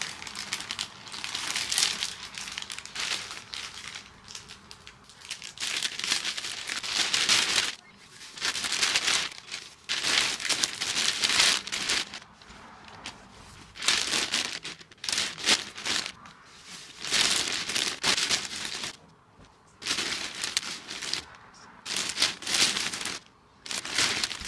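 Thin clear plastic vacuum storage bag crinkling in bursts as it is unfolded, handled and stuffed with clothes.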